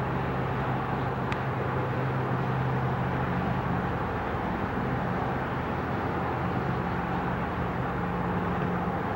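Steady hum of distant valley traffic, with a low drone in it that shifts slightly higher in pitch about halfway through and a faint tick just over a second in. The far-off fireworks flashing at this moment are not yet heard: their bangs arrive about 30 seconds after the flashes.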